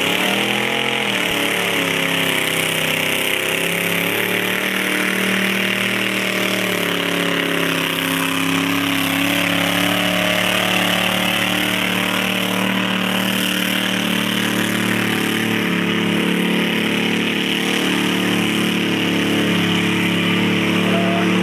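Diesel farm tractor engine revving up as it sets off pulling a weighted tractor-pull sledge, then running hard at high, fairly steady revs under heavy load.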